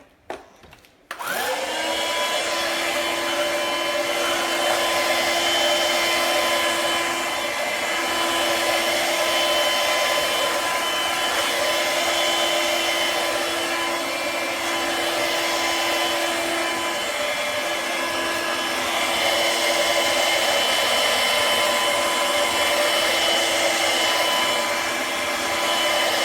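Cordless vacuum cleaner switched on about a second in: its motor spins up with a quick rising whine, then runs steadily at full suction with a high, even whine.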